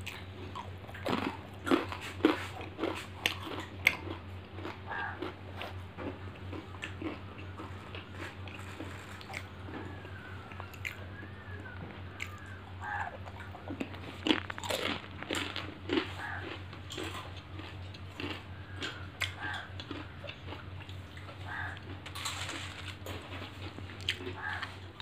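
A person biting and chewing crunchy food close to the microphone: irregular crisp crunches all through, with the loudest bites a couple of seconds in and again around the middle.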